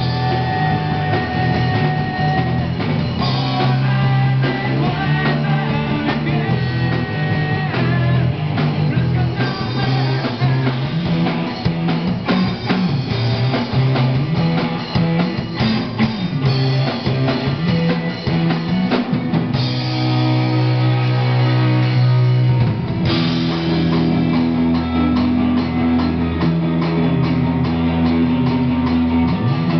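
Live rock band playing through amplifiers: distorted electric guitars, electric bass and a drum kit, with strong sustained bass notes.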